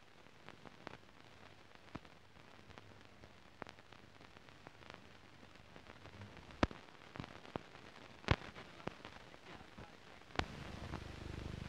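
Crackle of an old optical film soundtrack with no commentary: faint hiss with scattered clicks and pops, two sharper pops near the middle. About ten seconds in, a louder low rumble starts in.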